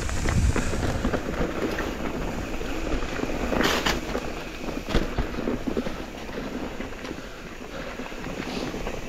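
Mountain e-bike riding over a rough dirt trail: tyre noise with frequent rattles and knocks from the bike over bumps, and wind on the microphone. A brief louder hiss comes a little over three and a half seconds in.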